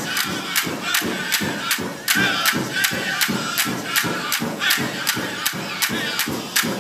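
Powwow drum group singing a men's traditional dance song: high, wavering voices over a steady, even beat on the big drum, about two and a half beats a second.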